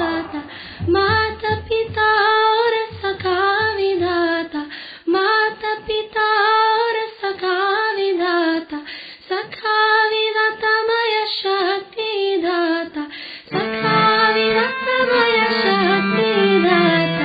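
A woman singing a song solo in long, wavering held notes. A low, regular beat goes with the first few seconds, and a lower held pitch joins under the melody near the end.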